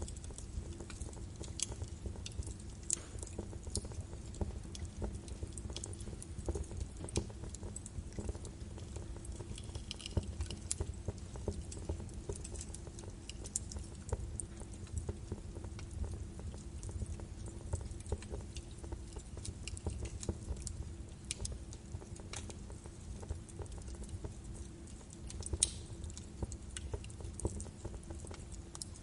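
Birch wood fire burning in a fireplace: a low steady rumble of flames with irregular sharp crackles and pops throughout, one louder pop near the end.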